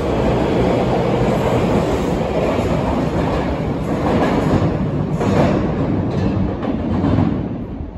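Osaka Metro subway train pulling out of an underground station, its wheels rumbling and clacking over rail joints with a few sharp knocks. The sound dies away near the end as the train enters the tunnel.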